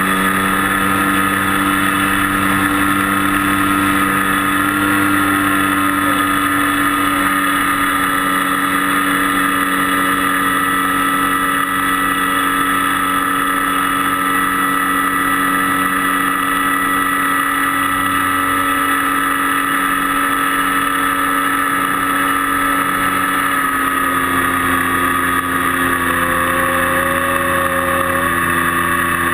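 Model airplane's motor running steadily in flight, a constant whine that dips slightly in pitch about 24 seconds in as the throttle eases.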